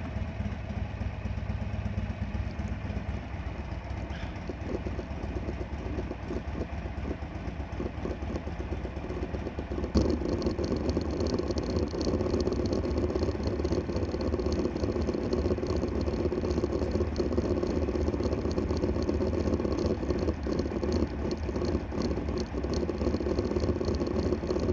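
Harley-Davidson Sportster Roadster's air-cooled V-twin idling steadily with a low, pulsing beat. About ten seconds in there is a sharp knock, and the engine sound then turns louder and brighter.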